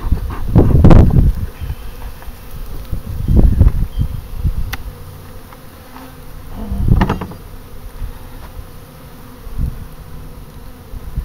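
Honeybees buzzing around an open hive during an inspection, a steady hum, broken by three loud low rumbles about a second in, about three and a half seconds in and about seven seconds in.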